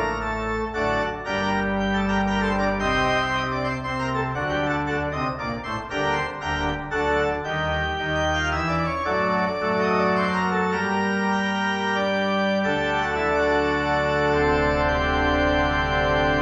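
Church pipe organ playing slow, sustained chords over deep pedal bass notes. The deepest bass drops out for a few seconds midway and then returns.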